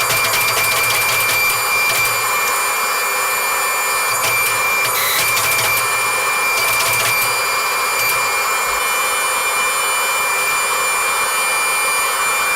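A machine running with a steady whir and a high, even whine.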